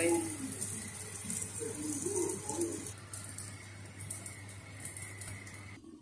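A dove cooing a few low, short calls about a second and a half in, over a low steady hum.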